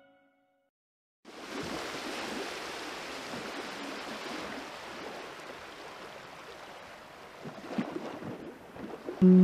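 After about a second of silence, steady outdoor riverbank ambience: a soft, even hiss of breeze and river water, with a few faint knocks near the end. Music cuts in at the very end.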